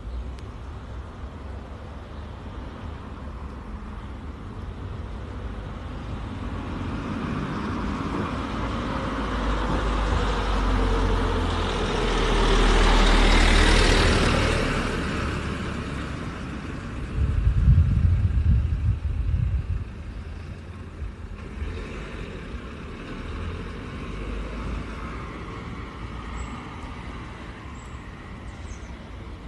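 A car passing close by, its noise swelling to a peak about halfway through and then fading away. Shortly after comes a louder low rumble lasting about three seconds.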